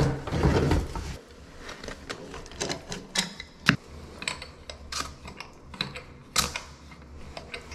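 Metal clicks and clinks of a corroded plumbing fitting being turned loose by hand from a pipe stub at the wall. A louder scraping rustle comes in the first second, then sharp clicks come at irregular intervals, about one or two a second.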